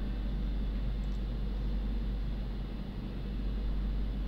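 Steady low electrical hum with a constant hiss over it, unchanging throughout: background noise of the recording rather than any event.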